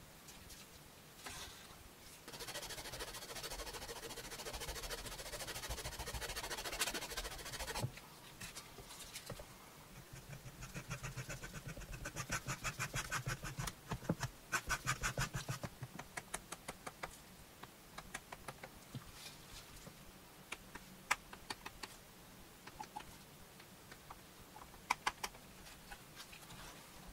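Hand tools working leather: a few seconds of steady rubbing, then a run of quick rhythmic scraping strokes, several a second, as a small blade works a leather piece on a wooden board, then scattered light taps and clicks.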